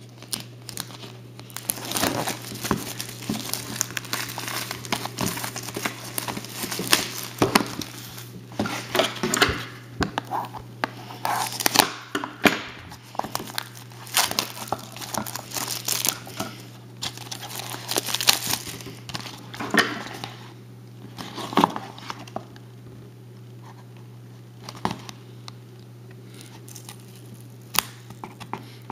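Plastic shrink-wrap crinkling and tearing as it is stripped off a trading-card hobby box, then wrapped card packs rustling as they are handled; the crackling is dense for most of the stretch and thins to occasional rustles near the end. A steady low hum runs underneath.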